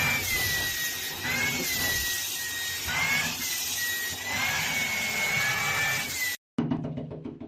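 A small electric motor running, with a high whine that slowly wavers up and down in pitch over a steady hiss. It cuts off abruptly about six seconds in.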